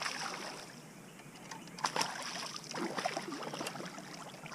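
A hooked bass thrashing and splashing at the surface beside a kayak, with a cluster of sharper splashes about two seconds in.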